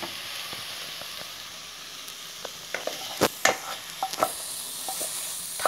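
Soft steady sizzling hiss from a non-stick kadai of cooked chhena (sandesh mixture) just taken off the heat. A few sharp scrapes and knocks come about three to four seconds in, as the mixture is tipped and pushed out of the pan onto a glass plate.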